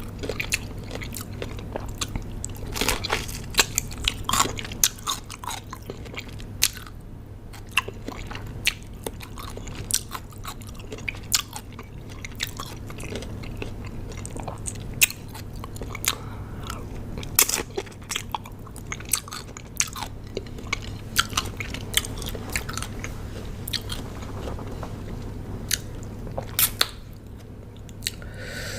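Close-miked chewing and biting of crunchy raw cucumber: wet, crisp crunches coming irregularly, several a second at times, with sharper snaps as bites are taken.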